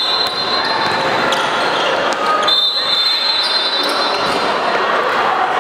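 Sounds of a basketball game in an echoing gym: the ball bouncing and players and spectators calling out. Two long high squeals stand out, one at the very start and one from about halfway in.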